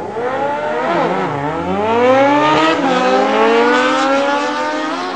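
Car engine accelerating: its pitch dips about a second in, then climbs steadily as it speeds up, fading off near the end.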